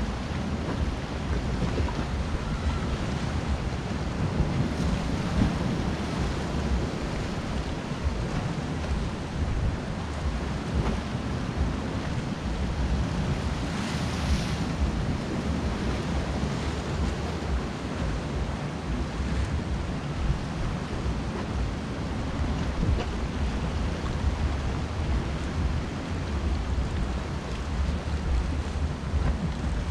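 Sea surf washing over a rocky shore, with wind rumbling on the microphone. About halfway through, one wave breaks against the rocks with a louder splash.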